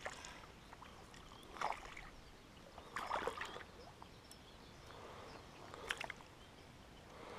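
A small hooked fish splashing at the water's surface beside a boat as it is reeled in and lifted out by hand, with water sloshing. Short splashes come about one and a half, three and six seconds in, the one at three seconds the loudest.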